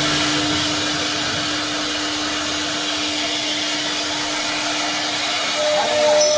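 CNC machine running: a steady whirring, rushing noise with a constant hum. A second, higher tone joins about five and a half seconds in.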